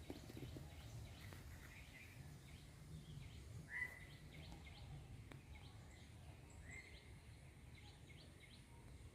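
Faint outdoor background: a low steady rumble with a few faint, short bird chirps, the clearest about four seconds in and again near seven seconds.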